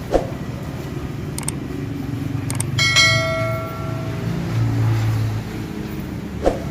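A single metallic clang about three seconds in, ringing like a struck bell and dying away over a second or so, over a low steady rumble, with a short click near the start and another near the end.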